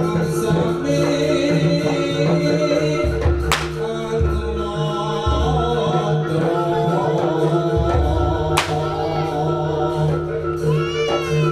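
Javanese jaranan music: gamelan-style ensemble with held pitched tones, deep drum beats and a singer. Two sharp cracks cut through it, about five seconds apart.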